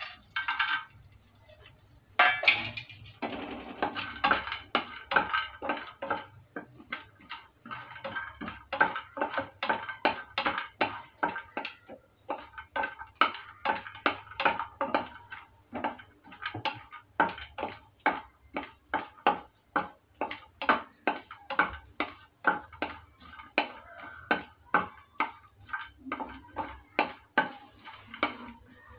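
Cashews and almonds tipped into hot ghee in a frying pan, then a wooden spatula stirring them, knocking and scraping against the pan about twice a second.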